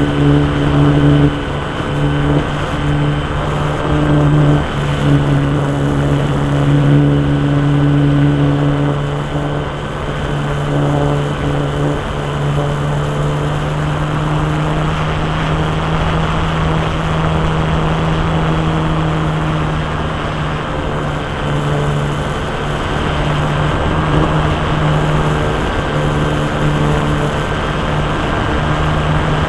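Small engine of an RC Stick model airplane running with its propeller at a steady pitch, its level rising and falling a little.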